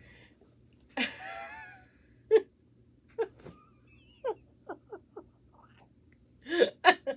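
A woman laughing helplessly. There is one high, falling cry about a second in, then a string of short wheezing gasps, and a few louder voiced laughs near the end.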